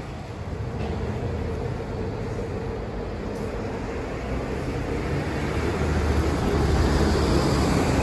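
Steady low rumble of vehicles going by, growing louder over the last few seconds.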